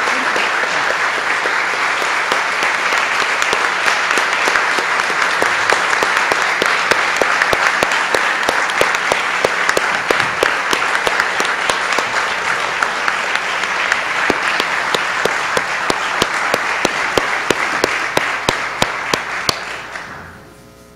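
Audience applauding at length, a dense, steady clapping that thins to scattered claps and stops just before the end.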